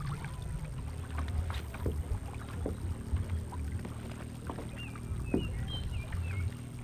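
Small waves lapping and knocking against a plastic sit-on-top kayak hull over a steady low rumble, with a few faint high chirps about five seconds in.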